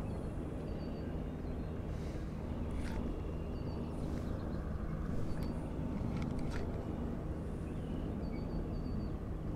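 Steady low hum of a bow-mounted electric trolling motor, with short high bird chirps now and then and a few sharp ticks.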